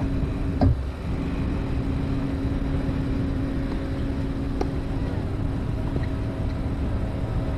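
Outdoor court ambience: a steady low rumble with a constant hum. A single sharp thump comes under a second in, and a few faint clicks follow later.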